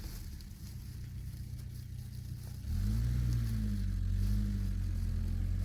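Car engine running at low revs, then revving up about two and a half seconds in, its pitch rising and dipping.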